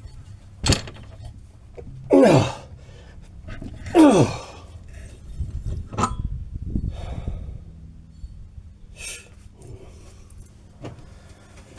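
A man groaning twice with effort, each groan falling in pitch, with a few sharp metal clicks, as he strains at a steel bushing rusted solid in a swing arm that won't budge.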